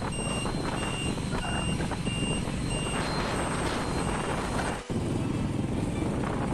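Motorcycle ride on an open road, with a steady engine and wind rumble. Over it a high electronic beep repeats at a regular pace, like a reversing or indicator beeper, and stops about three seconds in. The sound cuts out briefly about five seconds in.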